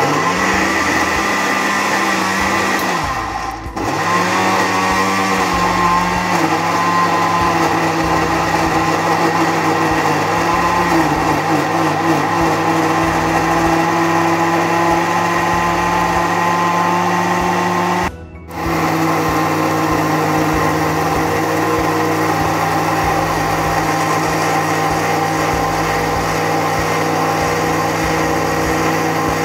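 Countertop electric blender with a glass jar running at speed, puréeing fresh strawberries on their own. It stops briefly about three and a half seconds in and again about two-thirds of the way through, starting up again each time.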